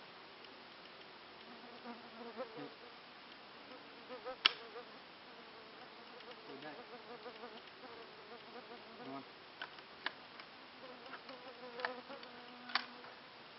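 Flying insects buzzing close by, a faint wavering hum that fades in and out. A few sharp clicks break in, the loudest about four and a half seconds in.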